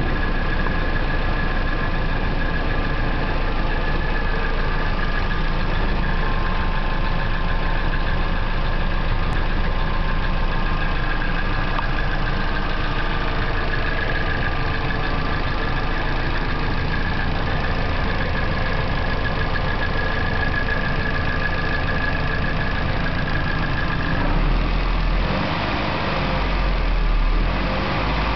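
Nissan KA24DE 2.4-litre four-cylinder engine idling steadily with a ticking noise that carries into the exhaust, which the owner takes for a sticky valve lifter rather than knock. Near the end the sound turns lower and heavier.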